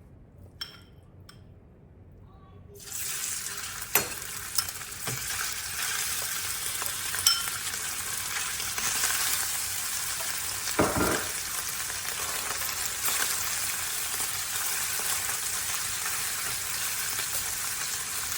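Bacon pieces frying crisp in a pan: a steady sizzle that starts suddenly about three seconds in, with a few knocks against the pan along the way.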